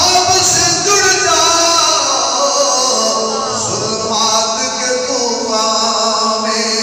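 A man singing verse in a slow, melodic voice, with long held notes that slide in pitch.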